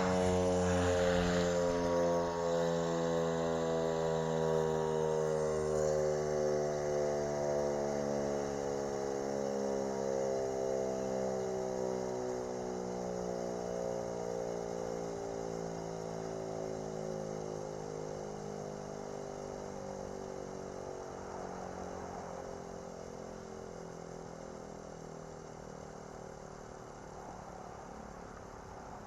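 Federal Model 5 electromechanical siren winding down after its test, its tone slowly falling in pitch and fading away.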